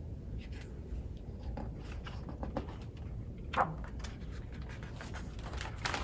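Quiet room with faint rustling and a few soft clicks from a hardcover picture book being handled, with a sharper click about three and a half seconds in and louder paper rustling near the end.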